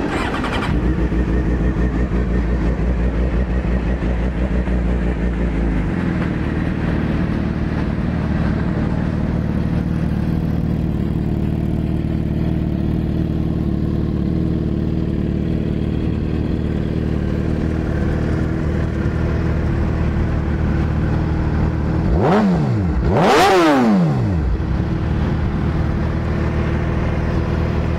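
2007 Suzuki GSX-R750's 750cc inline-four engine, fitted with a Two Brothers Racing aftermarket exhaust, starting up and idling steadily. About three-quarters of the way through, the throttle is blipped twice in quick succession, the engine revving up sharply and dropping straight back, the second rev higher.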